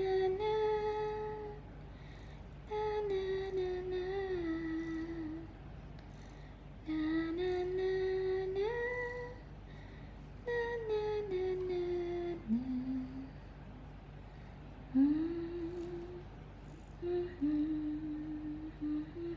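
A woman humming a slow, lullaby-like tune in long held notes that glide up and down, in phrases of two to three seconds with short pauses between them.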